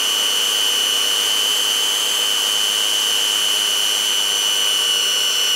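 Countertop blender motor switched on and running at a steady high speed with a high-pitched whine, grinding raw pork, garlic and fried shallots into a meatball paste.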